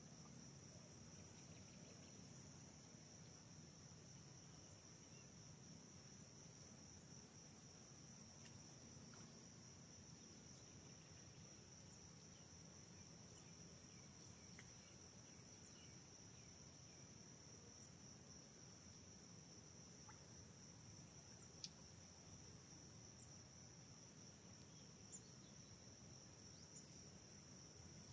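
Faint, steady high-pitched chirring of insects such as crickets, in two pitches, the higher one swelling and fading every few seconds. Two short, sharp clicks come in the second half.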